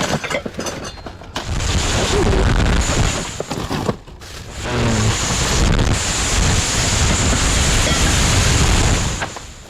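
Wind buffeting the microphone: a rushing noise in two long stretches, with a short lull about four seconds in.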